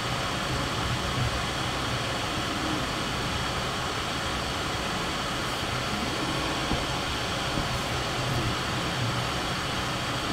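Steady background noise: an even hiss with a low hum underneath, unchanging throughout.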